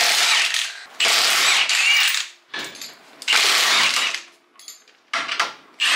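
Cordless impact wrench hammering lug nuts loose on an off-road side-by-side's wheel, in several bursts about a second long with short pauses as it moves from nut to nut.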